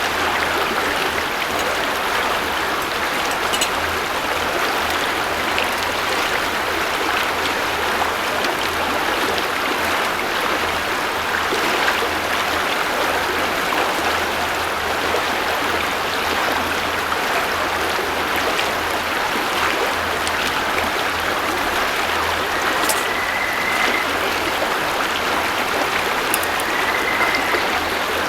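A river running over a stony bed: steady, even rushing water. Two brief high whistled notes come through near the end.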